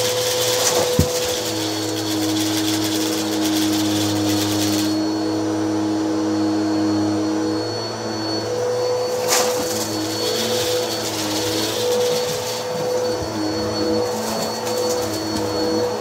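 Bissell CleanView upright vacuum running on carpet: a steady motor hum under rushing air as it is pushed back and forth over scattered debris. A sharp click about a second in and a sharp crackle about nine seconds in.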